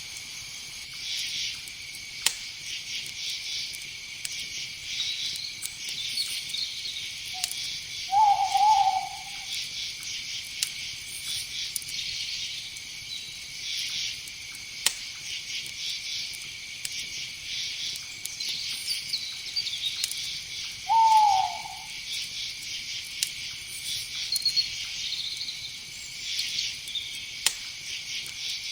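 Night insects, crickets among them, chirring steadily, with an owl hooting twice, short hoots about thirteen seconds apart; the second hoot falls in pitch.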